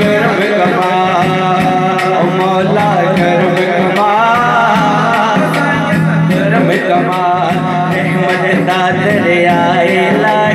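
A man sings a Punjabi naat (devotional song) into a microphone, with a steady drum beat keeping the rhythm.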